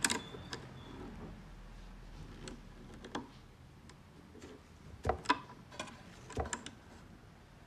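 Wooden tiered art box being handled: scattered light wooden knocks and clicks from its trays, frame and brass handle fittings. The louder taps come in two small clusters about five and six and a half seconds in.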